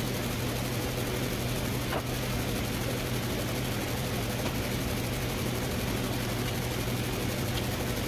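A steady low mechanical drone with a constant hum, like a running motor or engine, unchanging throughout.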